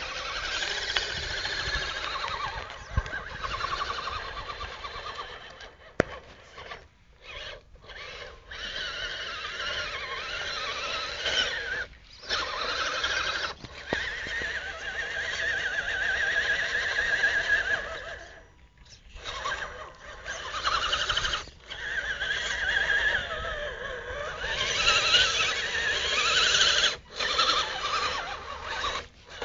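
Radio-controlled mud truck's drive motor and gears whining, the pitch rising and falling with the throttle and cutting out briefly several times as the throttle is released.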